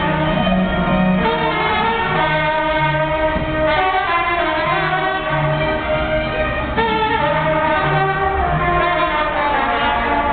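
Instrumental music with horns: a tune of held notes over a bass line that steps from note to note.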